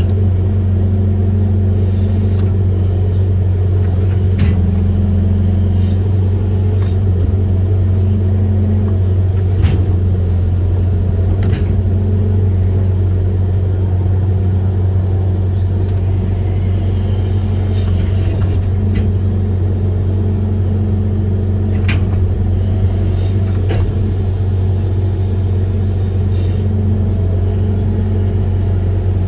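Amphibious excavator's diesel engine running steadily under work, a loud even low rumble, with a few sharp knocks here and there.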